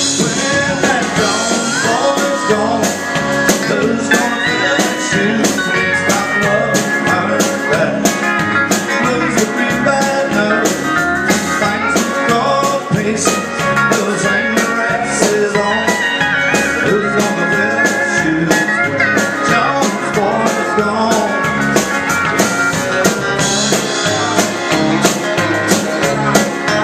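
Live country band playing with electric guitar, bass and drums keeping a steady beat; the guitar line bends in pitch, and no clear sung words come through.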